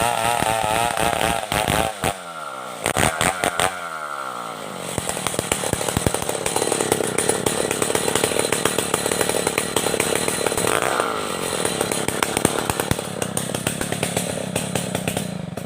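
Stihl 070 two-stroke chainsaw sawing merbau timber. The engine's pitch wavers, then drops about two seconds in. A long, steady cut with dense chain rattle follows and dies away at the very end.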